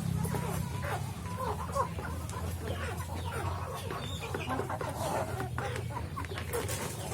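A flock of Indonesian village hens (ayam kampung) clucking and chattering as they are fed, many short overlapping calls, over a steady low hum.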